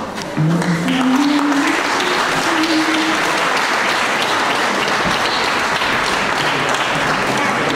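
Audience applauding, steady dense clapping that starts about half a second in. A few held low notes sound over the first three seconds.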